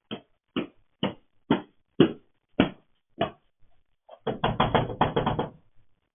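Knocking: seven sharp knocks about half a second apart, then a rapid flurry of pounding lasting just over a second, heard through a doorbell camera's narrow-band microphone.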